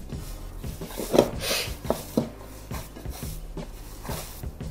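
Hand kneading and squeezing crumbly, buttery galette dough (flour, butter, sugar and egg) in a ceramic bowl: irregular soft squishing and pressing sounds, with a couple of sharper ones about one and two seconds in.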